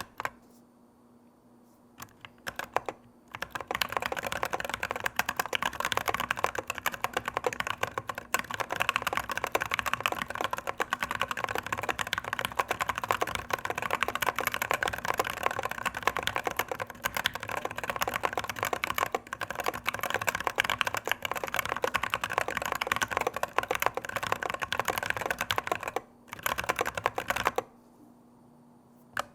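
Typing on an OLKB Planck Rev. 6 ortholinear mechanical keyboard with stock Durock T1 67g tactile switches and Drop MT3 keycaps in a foam-filled high-profile acrylic case. A few single keystrokes at first, then fast continuous typing that breaks off near the end, with one short burst before it resumes at the very end.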